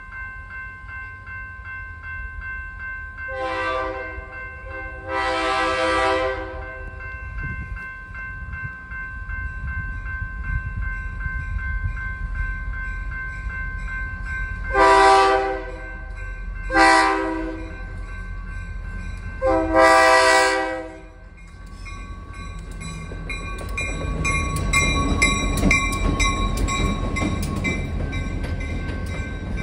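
Locomotive air horn sounding for a grade crossing, over the steady ringing of the crossing signal bell. There is a short blast and then a long one, and after a pause three more: medium, short, long. From about 22 seconds in, the passenger train rolls past with a rising rumble and a regular clicking of wheels over rail joints.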